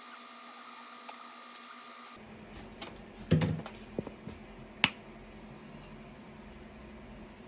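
A few knocks and clicks: a dull thump about three seconds in, then sharp clicks about four and five seconds in, the last the sharpest. Under the first two seconds there is a faint steady hum that cuts off suddenly.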